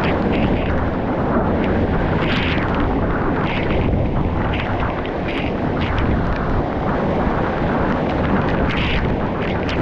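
Waterfall rushing loudly and steadily up close, with brief higher splashy flickers through it.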